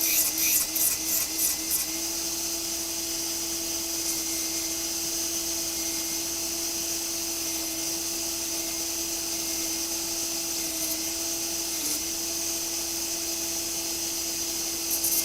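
Electric sander running steadily with a motor whine and a hiss, rounding the edges of a wooden frame; in the first couple of seconds it pulses about four times a second as it is pressed against the wood, and the pitch dips briefly under load near the end.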